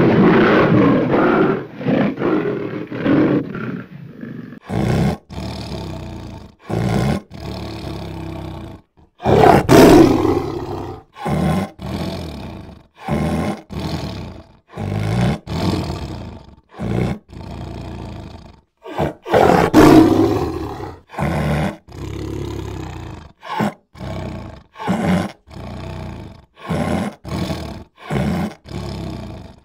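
Big cats (lions and tigers) roaring and growling. After a long call at the start comes a rapid series of short calls that start and stop abruptly, the loudest about ten and twenty seconds in.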